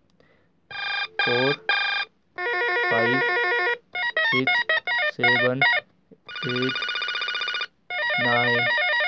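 Beetel M59 landline telephone playing previews of its built-in electronic ringtones one after another as the arrow key steps through them. There are about seven snippets of different melodies, each cut off after a fraction of a second to a second and a half, one of them a fast warble.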